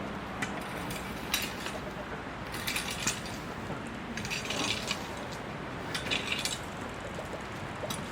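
Small hard objects clinking and rattling in three short spells, with a few single clicks between them, over a steady background hum.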